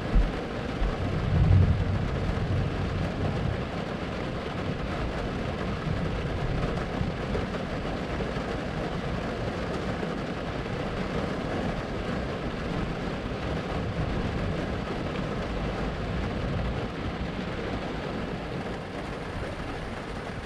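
Thunderstorm: steady rain hiss with a low roll of thunder about a second or two in that fades out by about four seconds.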